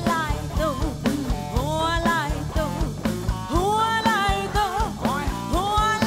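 Live rock band playing: a woman singing a melody over electric guitar, bass guitar and a drum kit.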